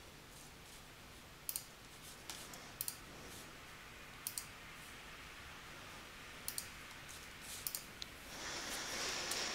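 Computer mouse clicking: a handful of sharp clicks, several in quick pairs, spaced a second or two apart. Near the end a soft rustling hiss rises.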